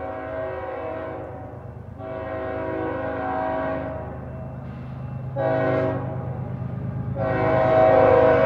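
Diesel locomotive horn on BNSF 6960 blowing the grade-crossing signal as it approaches: a long blast, a short one, then a final long blast starting near the end that is louder. A low engine rumble runs underneath.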